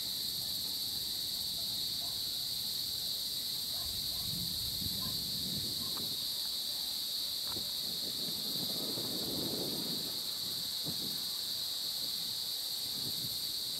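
Steady insect chorus at dusk, crickets trilling in a continuous high-pitched drone without a break. Fainter low sounds come and go around the middle.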